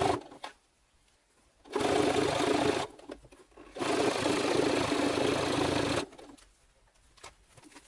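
Brother electric sewing machine stitching a seam through leather glove panels, running in two bursts: about a second long, then a short pause, then about two seconds more.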